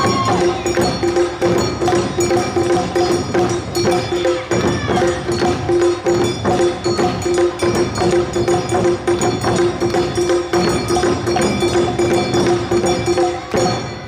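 Awa odori festival band music: fast, driving percussion of drums and kane hand gongs over a long held melodic note. The music stops abruptly near the end.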